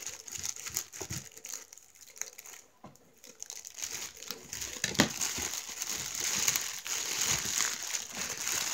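Thin clear plastic packaging bag crinkling and rustling as it is slit with a utility knife and pulled open by hand. It is fairly quiet for the first few seconds, then the crinkling grows denser from about four seconds in, with a sharp crackle around five seconds.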